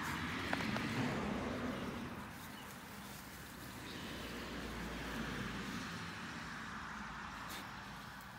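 Rustling of evergreen shrub branches as a dog pushes and walks through them, swelling at the start and again midway.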